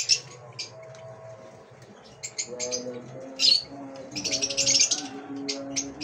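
Peach-faced lovebirds chirping: short, sharp, high-pitched calls from several birds, with a loud burst about three and a half seconds in and a rapid run of chattering calls just after four seconds.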